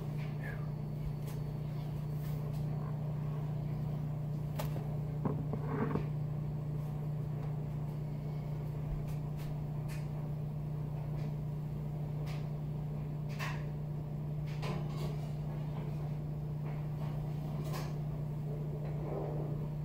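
Scattered knocks, clicks and light clatter of utensils and dishes being handled on a kitchen counter, over a steady low hum.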